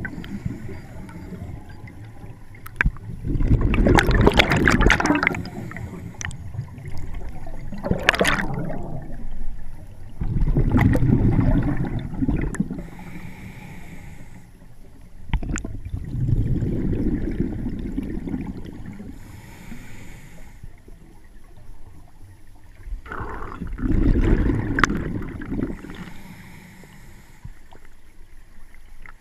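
Scuba diver breathing through a regulator underwater: loud bubbling bursts of exhaled air about every six seconds, with fainter hisses between them.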